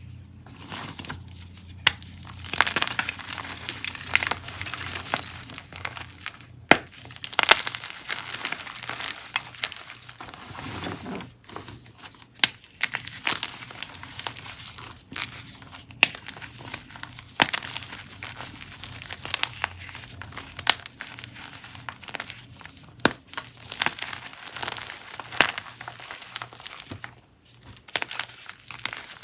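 Gym chalk chunks and blocks being crushed, a continuous soft crumbling crunch broken by many sharp snaps.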